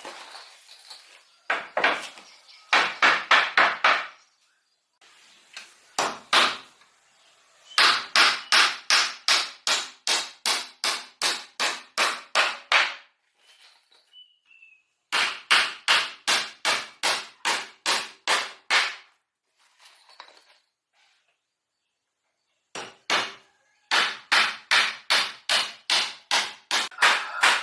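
Hammer blows on wood, coming in runs of quick, even strikes about three a second, with short pauses between the runs.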